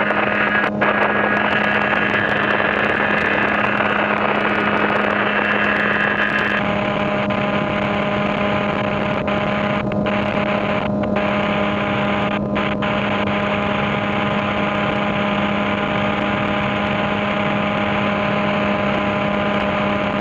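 Light aircraft engine of a strut-braced high-wing ultralight running at steady take-off power as it lifts off and climbs out, one constant droning note.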